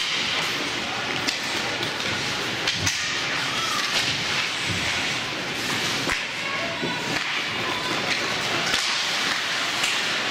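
Ice hockey play in a rink: a steady scraping of skates on the ice, with sharp clacks of sticks and puck scattered throughout.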